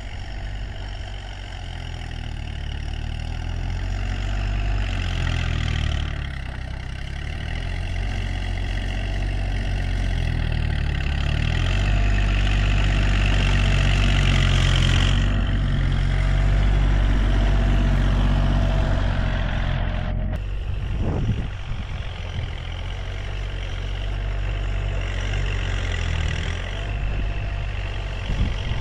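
Farm tractor engine running continuously as it works the field, its pitch and loudness rising and falling with the load.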